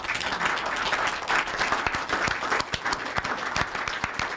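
An audience applauding: many hands clapping at once in a dense, even patter.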